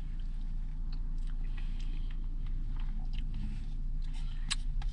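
Close mouth sounds of someone eating soft-serve ice cream: small wet clicks and crunches, one sharper click about four and a half seconds in, over a steady low hum.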